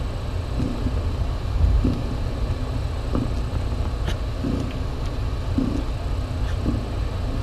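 A calico mother cat purring while her kittens nurse: a low, steady rumble that swells about once a second with her breathing.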